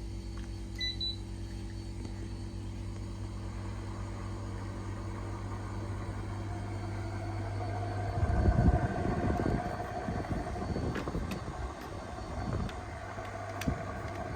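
Panasonic room air conditioner running with a steady hum, with a short beep about a second in. From about eight seconds in, a higher whoosh of air and an uneven, gusty low rumble join the hum.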